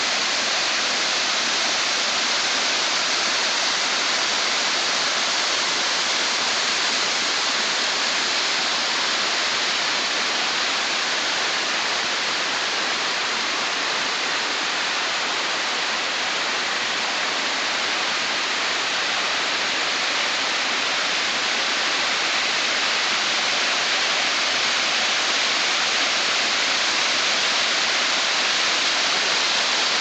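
Waterfall pouring onto rocks: a steady, unbroken rush of falling water.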